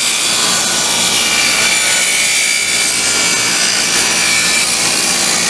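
Table saw ripping a quarter-inch-thick aromatic Eastern red cedar tongue-and-groove board into narrow strips: a loud, steady cutting noise as the board is fed along the fence.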